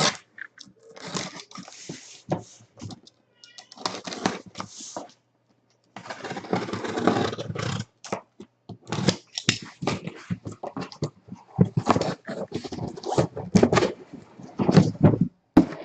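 Plastic shrink wrap being cut with a knife and torn off sealed card boxes, with crackling rustles and small knocks of handling. The longest, densest rustle comes about six to eight seconds in.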